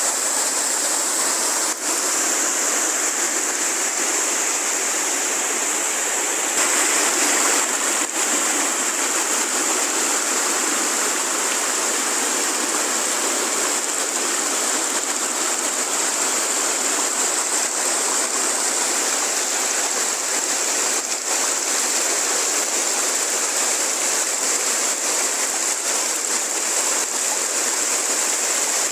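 Mountain stream rushing over rocks and small cascades, a steady loud rush of water that grows slightly louder about six seconds in.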